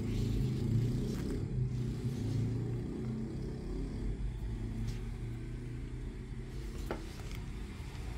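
A low steady rumble with a faint hum, slowly fading, with two faint light clicks in the second half.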